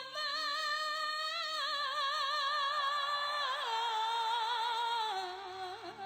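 A singer holding one long note with steady vibrato in a song, stepping down in pitch about three and a half seconds in and again near the end, then cutting off suddenly.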